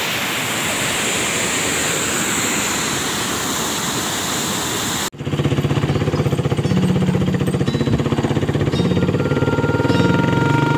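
A steady rushing noise for about five seconds, then, after an abrupt cut, a motorcycle engine running with a fast, even pulse.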